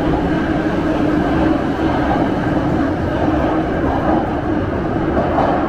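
Moscow Metro train running at speed through a tunnel, heard from inside the carriage: a steady, loud rumble of wheels and motors with a constant low hum.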